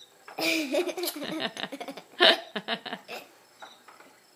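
A seven-month-old baby vocalizing without words: a drawn-out, wavering sound, then about a second later a quick string of short bursts.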